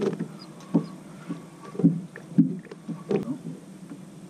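Small waves slapping against a bass boat's hull in irregular knocks, roughly one a second.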